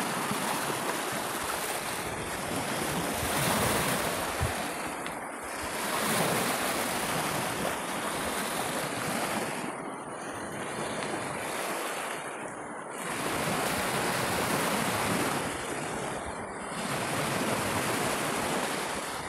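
Small Baltic Sea waves breaking and washing over a pebble beach, the surf swelling and fading every few seconds.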